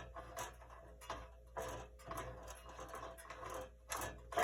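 Scattered light clicks and knocks of metal parts being handled on a bandsaw, as a knob is worked loose from its housing.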